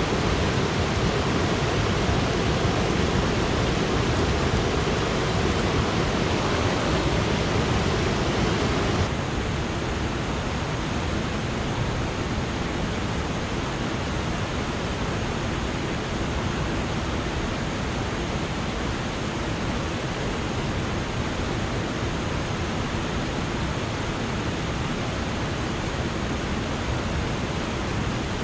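Water pouring over a low mill-dam spillway, a steady rush. About nine seconds in it drops suddenly to a quieter, thinner rush.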